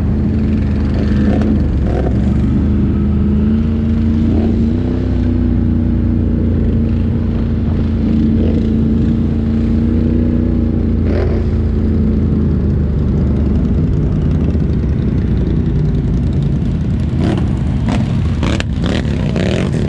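ATV engine running at a steady pace while riding, easing off about two-thirds of the way through. A few sharp knocks and clatters come near the end.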